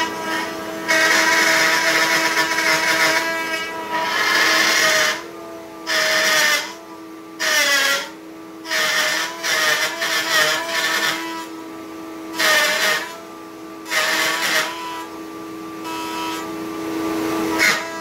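Bosch router mounted in a router table running at high speed with a steady whine, cutting a lock mortise into the edge of a wooden chest lid. Repeated bursts of cutting noise come as the wood meets the bit, and the motor's pitch dips briefly under load several times.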